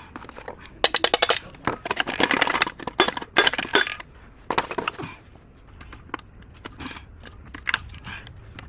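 Metal engine parts and tools being handled, clinking and rattling. There is a dense run of rapid clicks between about one and four seconds in, another short burst around five seconds, then a few scattered single clinks.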